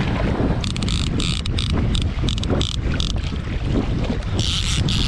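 Wind buffeting the microphone of a jetski running over choppy sea, with water rushing and splashing against the hull. Bursts of hissing spray come between about half a second and three seconds in, and again near the end.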